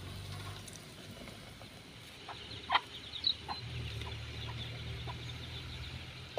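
Domestic hen clucking in short, scattered calls, with her chicks peeping, starting about two seconds in.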